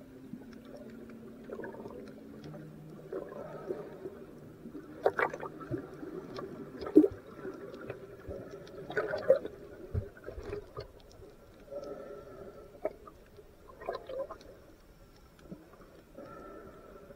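Underwater sound picked up by a diver's camera: irregular gurgles and sloshing surges with scattered sharp knocks, the strongest in the middle. A faint low hum fades out in the first few seconds.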